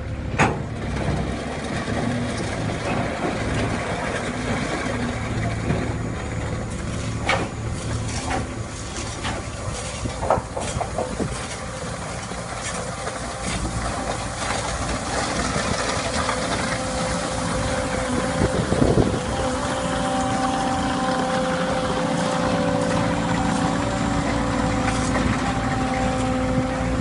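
Volvo MCT125 skid steer's diesel engine running steadily while grading, with a few sharp clanks early on and a steadier, higher engine tone in the last third.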